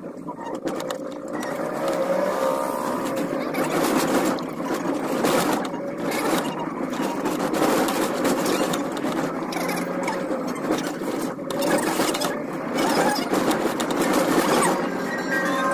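Car engine and road noise while driving, heard from inside the cabin, with a steady whine and frequent knocks and rattles.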